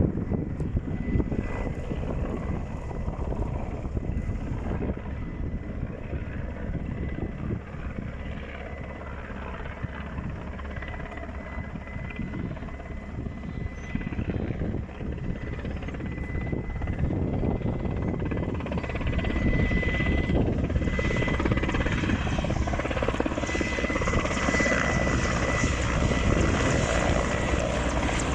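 Firefighting helicopter: the low beat of its rotor under a thin steady whine, growing louder about two-thirds of the way through.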